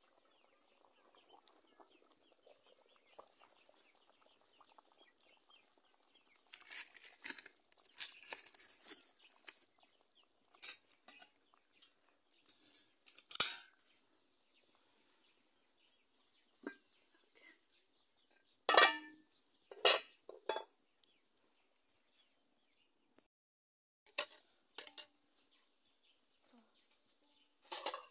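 Aluminium cooking pots, lids and enamel and china dishes clinking and clattering as they are handled, in scattered short knocks with quiet gaps between.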